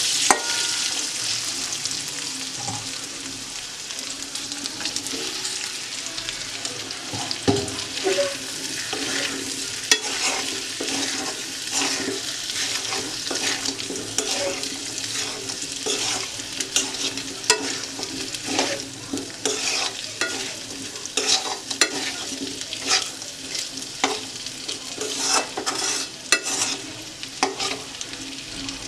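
Food sizzling as it fries in a pan, with a spatula stirring and scraping it: a steady hiss broken by frequent clicks and scrapes.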